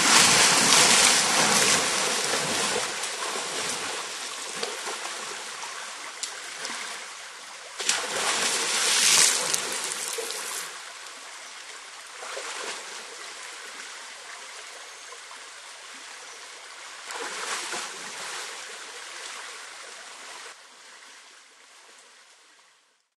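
African forest elephant wading across a river, splashing water close to the microphone. The splashing comes in three loud surges, at the start, about eight seconds in and about seventeen seconds in. Each eases into a steadier rush of water, and the sound fades out near the end.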